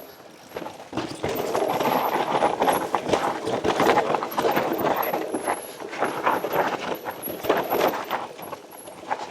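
Mountain bike clattering over a rocky trail: tyres knocking over rocks and the bike rattling in quick, irregular knocks, louder from about a second in and easing near the end.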